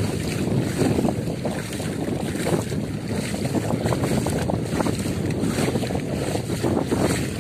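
Wind buffeting the microphone over water rushing and splashing past a moving boat, a steady rough rumble with no speech.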